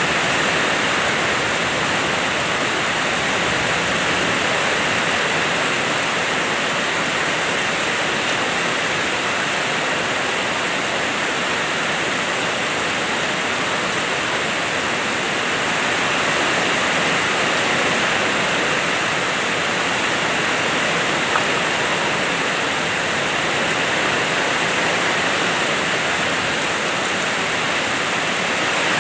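Heavy rain falling steadily, a loud even hiss with no let-up.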